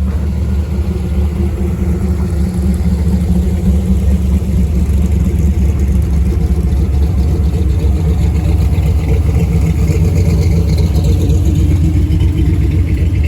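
Car engine running steadily at low parade speed, its sound sitting low and even throughout.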